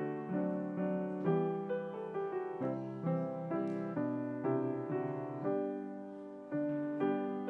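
Piano music: chords and melody notes struck and left to ring, each fading after it is played. Near the end the sound dies away for about a second before a fresh chord is struck.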